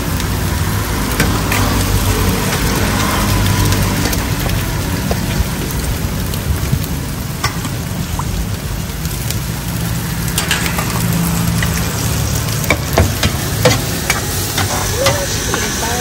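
Food sizzling as it fries on a hot pan, with sharp clicks and scrapes of a metal spatula stirring it; the clicks come thicker near the end.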